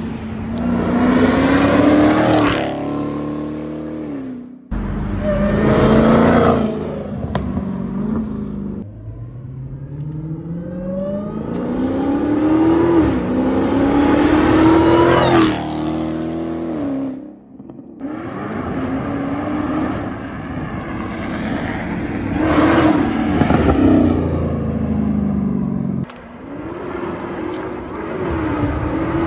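Supercharged 6.2-litre Hemi V8 of a Dodge Hellcat fitted with a JLT cold-air intake, accelerating hard through the gears. The engine note climbs repeatedly and drops back at each upshift, with a few abrupt breaks along the way.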